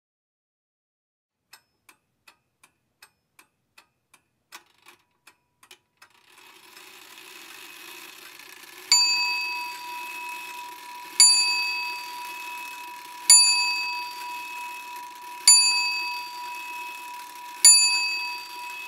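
A clock ticking, about three ticks a second, for a few seconds. Then, over a low hum, a bell is struck five times about two seconds apart, each strike ringing on and fading.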